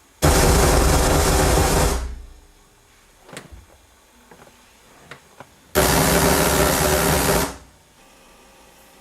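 Loud bursts of harsh noise from a Sony SCD-777ES SACD player's audio output, twice, each lasting nearly two seconds and cutting in abruptly, with faint clicks between them. This is the player's known fault at the end of some SACD discs, cured by a firmware update.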